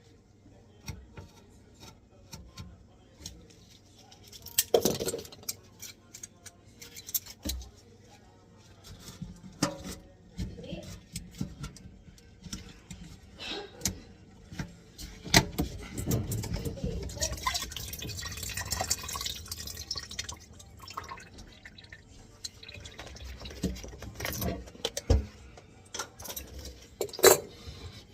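Plastic drain fittings and metal tools knocking, clinking and scraping as a kitchen sink's P-trap and drain pipes are taken apart by hand, with a longer rushing, rustling stretch about halfway through.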